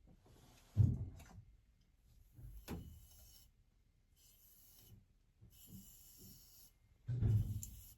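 Hair dryer switched off; a series of rustling, rubbing strokes, each about a second long, with a few soft thumps, the sound of hair and the dryer being handled.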